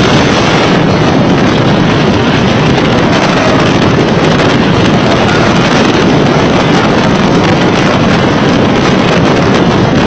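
Steady, loud wind rushing over the microphone of a motorboat under way, drowning out the boat's engine and the water.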